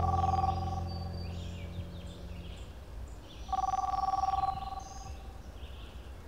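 Telephone ringing: an electronic two-note ring about a second long, sounding at the start and again about three and a half seconds in. Birds chirp throughout, and a low tone fades out over the first couple of seconds.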